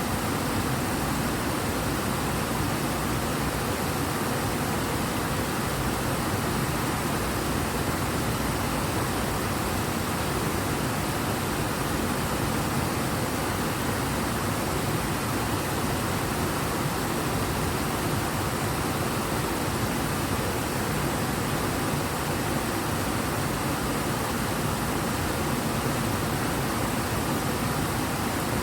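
River water running high and fast: a steady, unbroken rush of flowing water with no change in level.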